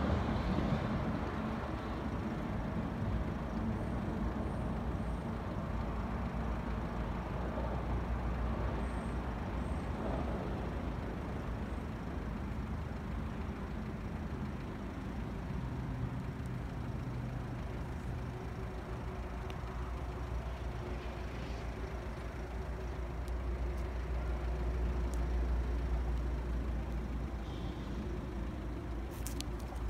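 Steady low rumble of engines, road traffic and heavy diesel machinery, running on without a break and swelling slightly about three-quarters of the way through.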